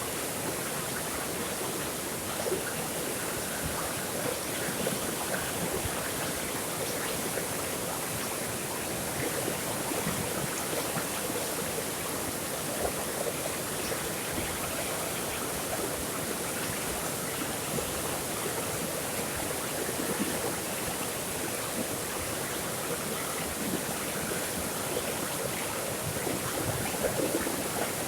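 Water flowing and babbling steadily in a stream, with small splashes flickering through it.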